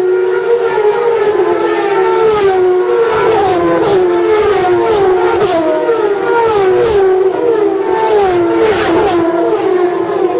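A pack of race cars at full throttle, several engines running together at high revs, their pitch rising and then dropping over and over as cars go by and shift up.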